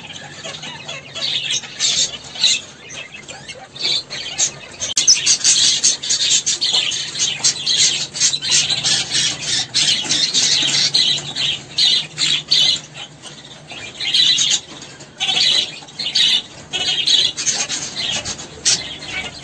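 Red-rumped parrots chirping and twittering with many quick, high, repeated calls that come in clusters through the whole stretch.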